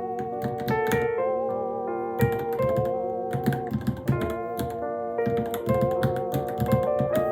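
Rapid, irregular key clicks from typing on a Varmilo Minilo keyboard, over background music: an electric-piano-like melody of held notes with a slight waver.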